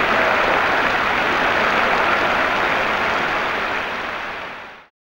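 Tennis crowd applauding, a dense even clatter of clapping that fades out and stops just before the end.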